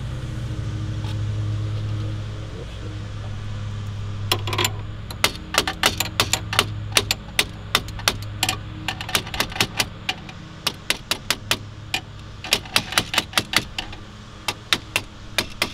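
A steady low hum for the first few seconds, then a long run of sharp mechanical clicks, several a second, in bursts with short pauses.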